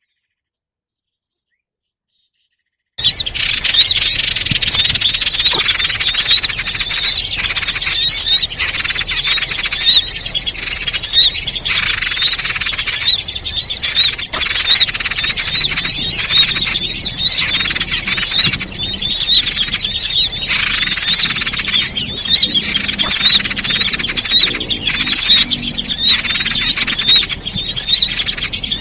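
Bird-lure recording: dense, rapid, high chirping and squawking of small songbirds, starting abruptly about three seconds in after dead silence and staying loud and busy throughout.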